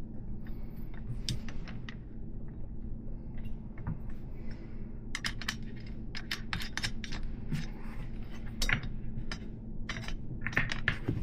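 Small metal bicycle hub and axle parts clicking and tapping as they are handled and fitted into the fork, in irregular clusters of sharp clicks that are busiest in the middle and near the end, over a steady low hum.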